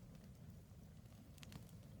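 Wood campfire burning faintly: a low, steady rumble with a few quiet crackles from the burning logs about one and a half seconds in.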